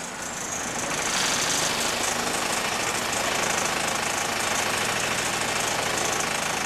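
Dennis Dart single-deck bus's rear-mounted diesel engine running under way, heard from inside the saloon, a steady fast diesel clatter that grows louder about a second in and then holds.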